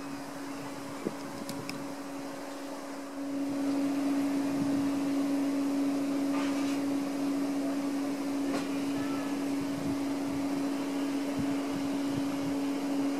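Standing steam locomotive No. 1009 giving off a steady mechanical hum on one tone, which grows louder about three seconds in, with a few faint ticks.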